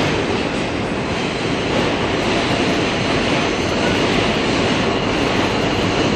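Steady running noise of a New York City subway car in motion, heard from inside the car.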